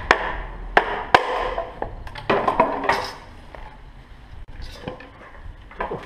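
Wooden mallet knocking down on an upright length of moso bamboo to split it lengthwise: three sharp knocks in about the first second, then lighter cracks and clatter about two to three seconds in as the culm splits open.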